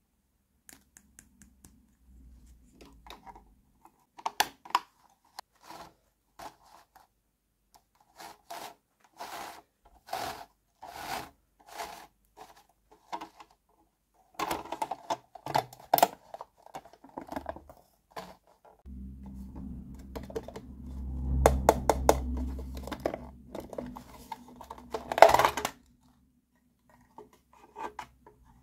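Hard plastic toy house parts being handled and snapped together by hand: a series of sharp clicks and taps. A low hum runs through the later part, with one loud snap near the end of it.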